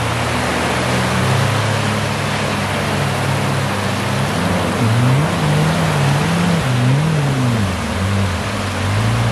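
Two jet ski engines running offshore, their pitch rising and falling a few times as the riders blip the throttles, over steady surf washing onto the beach.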